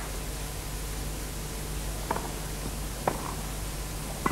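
Steady hiss and hum of an old videotaped TV broadcast, broken three times by the short knock of a tennis ball being bounced and struck.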